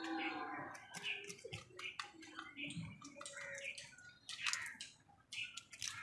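House crows pecking at grain on concrete and dipping their beaks into a plastic bowl of water: a scatter of sharp taps and wet clicks, with a few short calls in the first second.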